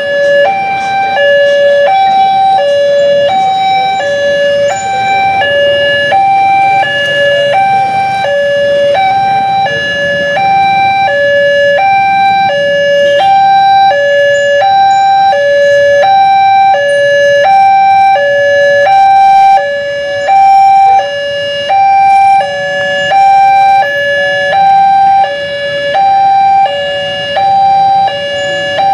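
Railway level-crossing electronic warning alarm sounding a steady two-tone high-low chime, about one high-low pair a second, signalling that a train is approaching as the barriers come down. Faint road traffic runs underneath.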